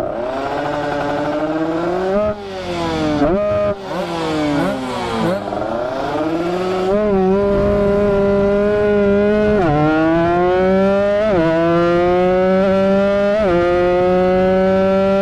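Motorcycle engine under way, revs swinging up and down at first, then accelerating through the gears: the pitch climbs steadily and drops sharply at each of about three upshifts in the second half.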